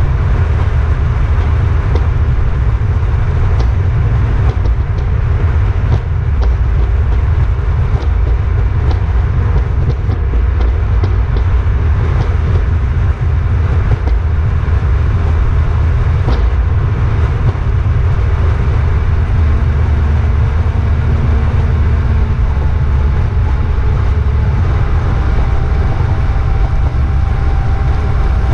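Motor of a small aluminium river boat running steadily under way, a constant deep drone with water rushing past the hull.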